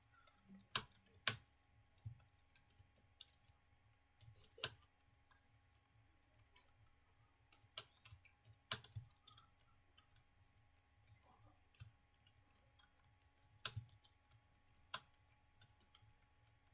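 Computer keyboard keys being pressed slowly and irregularly while typing, single faint clicks with a few louder strokes scattered through, spaced by pauses of up to a few seconds.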